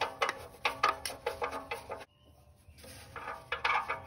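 Light metallic clicks and knocks of an oxygen sensor being unscrewed by hand from the exhaust pipe, broken by a short gap of near silence about halfway through.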